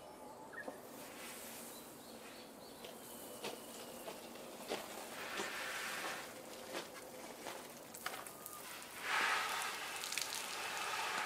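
Water sprinkled from above, pattering onto tomato leaves and concrete, loudest from about nine seconds in, with scattered light ticks before it.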